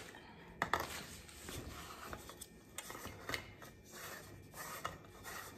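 Rubbing, scraping and small clicks of a spiral compact fluorescent bulb being twisted into a softbox's lamp socket by hand, with a sharper click about three-quarters of a second in.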